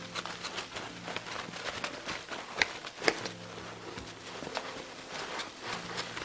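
Blue paper shop towel wiping and buffing the hard, glossy fiberglass-resin finish of a carved wooden paddle: a quick, uneven run of rubs and scuffs, with two sharper scuffs a little before the middle.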